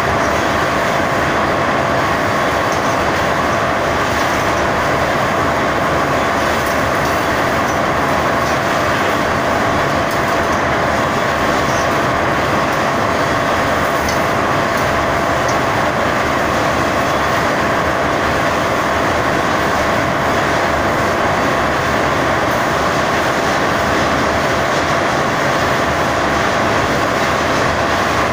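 Wire-drawing machine running steadily: a loud, unchanging machine noise with a constant thin whine through it.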